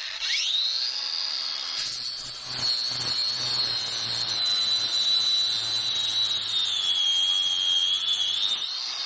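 Neiko 20-volt 4.5-inch cordless angle grinder with a flap disc, spinning up to a high steady whine and then grinding a thick steel bar, a rough grinding noise over the whine from about two seconds in. The pitch sags slightly under load and rises again near the end as the disc comes off the steel; the grinder has good power and barely bogs down.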